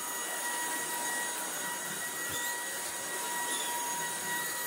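Tineco A10 Hero cordless stick vacuum running on max power, a steady high whine over the rush of air, as its motorised floor head is pushed over a rug.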